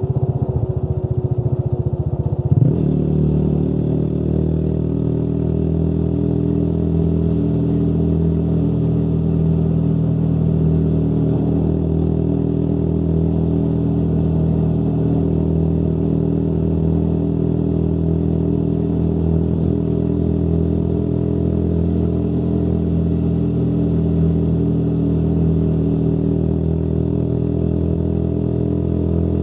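Motorcycle engine running under way, its pitch uneven for the first few seconds, then holding steady with a slow slight rise.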